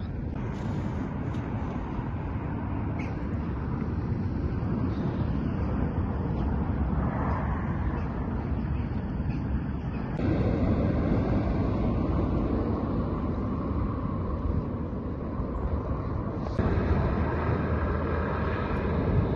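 Steady outdoor background rumble from the shoreline recording, changing abruptly at cuts about ten and sixteen and a half seconds in.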